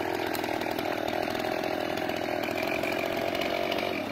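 Stihl chainsaw running steadily without cutting, then cutting off abruptly near the end.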